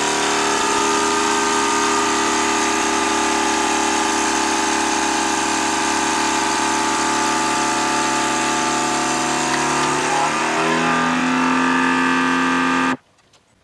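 Vacuum sealer pump running steadily as it draws the air out of a long bag holding a salted meat leg. Its tone shifts about ten seconds in as the bag pulls tight around the meat, then it cuts off suddenly near the end.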